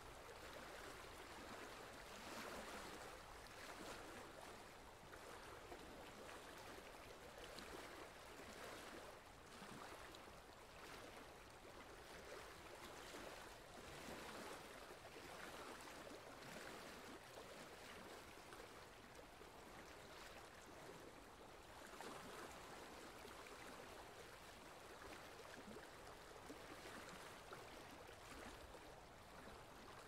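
Faint, steady rush of moving water in a fish tank, the flow of the aquarium's filter or circulation, swelling a little now and then.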